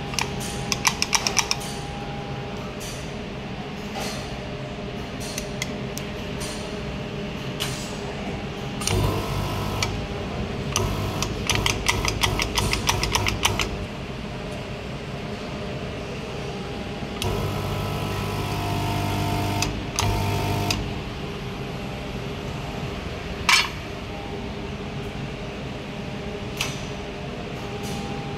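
ITECH SP-C350LF lead-free semi-automatic dip soldering machine running with a steady hum. Its drive motor whirs twice, once for about a second and later for about three and a half seconds. Rapid runs of clicking come near the start and in the middle, and there is one sharp knock near the end.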